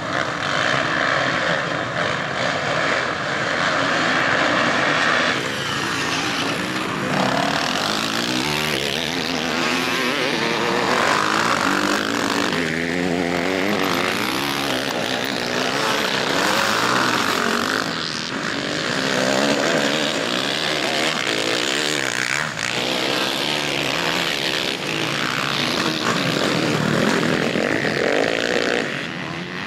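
Motocross bikes racing on a dirt track, their engines revving hard, with the pitch climbing and dropping as the riders work the throttle and shift through corners. The sound cuts abruptly several times between a crowded pack of bikes and a few bikes close by.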